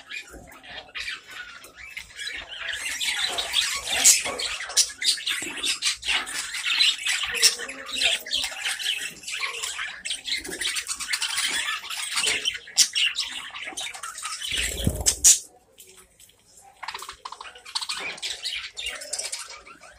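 Budgerigars chattering and squawking, a dense run of short chirps. About fifteen seconds in there is a brief low thud, then the chatter drops away for a second or so before starting again.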